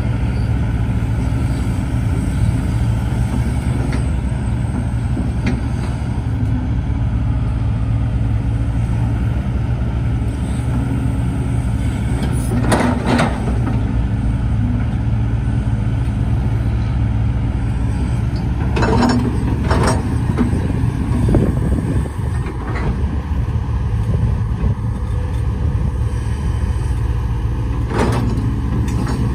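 Hitachi ZX130-5N hydraulic excavator digging in sand: its diesel engine runs under load with a steady drone, and a few brief sharp noises from the working bucket and arm come about 13 seconds in, twice about 19 seconds in, and once near the end.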